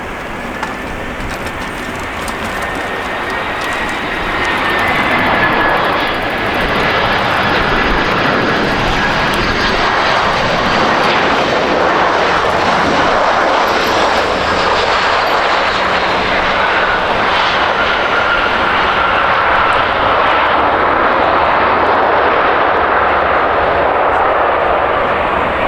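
Airbus A321 freighter's twin jet engines passing close while landing, with a steady roar and a high whine that slowly falls in pitch. The sound swells about four seconds in and stays loud.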